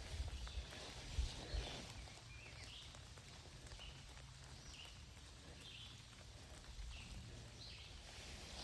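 Faint outdoor woodland ambience: a few footsteps in the first second and a half, then short, distant bird calls scattered over a quiet background.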